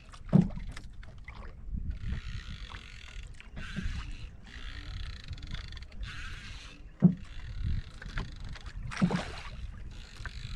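Water sloshing and slapping against the hull of a small outrigger boat as it rocks on the swell, with patches of hissing wash every second or two and a low wind rumble on the microphone. Three sharp knocks against the boat, about half a second, seven and nine seconds in.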